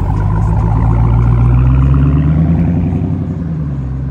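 Dodge Challenger SRT Hellcat Widebody's supercharged 6.2-litre HEMI V8 accelerating away, its note rising and getting louder over the first two seconds, then holding and easing off near the end. A faint whine climbs with the revs.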